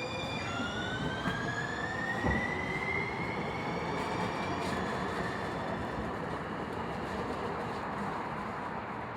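San Diego Trolley light-rail train running along the track, its traction motors giving a whine that rises in pitch over the first few seconds as the train picks up speed, over a steady rumble of wheels on rail.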